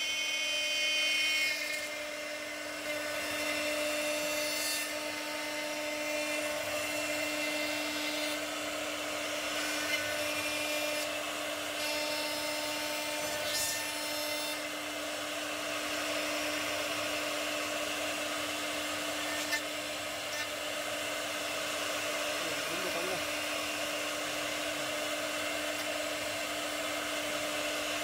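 High-speed drilling spindle of a CNC horizontal drilling machine running with a steady whine as its bit works into the edge of a door panel for hinge holes. Higher tones come and go over the first half.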